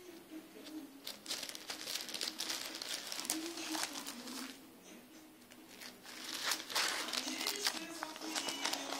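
Clear plastic sheet protectors in a ring binder crinkling as pages are turned by hand, in two bouts of crackly rustling, the second starting about six seconds in.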